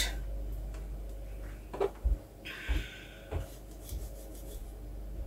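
Kitchen knife slicing a tomato by hand over a cutting board: a few soft knocks and a short scrape around the middle.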